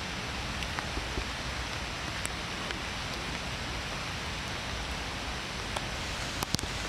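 Steady rain falling, with scattered drops ticking close by and a couple of sharper taps near the end.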